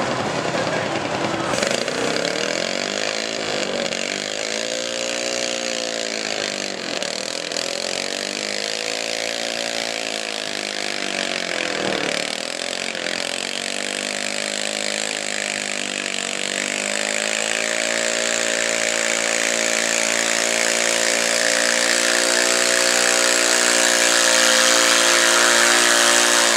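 Modified garden tractor engine running at high revs under load, pulling a weight-transfer sled. The engine speed swells and sags several times over the first dozen seconds, then holds steady and grows louder near the end.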